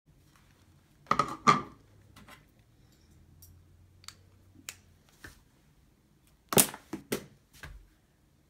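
Sharp handling clicks and clacks as a plastic hand mirror and makeup items are put down: two loud clacks about a second in, a few faint ticks, then a quick run of four clicks near the end.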